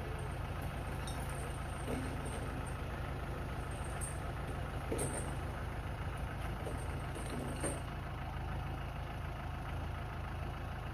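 Kubota M6040 tractor's four-cylinder diesel engine running steadily at a low, even pitch, with a few short knocks over it.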